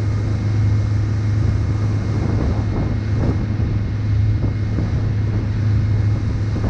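Open boat's engine running steadily under way, a constant low drone, with wind buffeting the microphone and water rushing past the hull.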